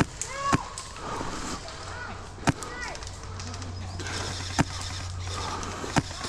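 HPA airsoft gun firing single shots, five sharp cracks spaced unevenly one to two seconds apart, with distant players shouting in the background.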